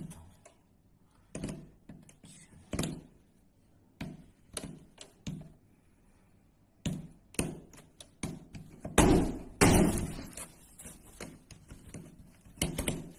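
A plug being jabbed at a wall socket: a string of short taps and knocks at uneven intervals, then a louder, longer noisy burst about nine seconds in, followed by a few more knocks near the end.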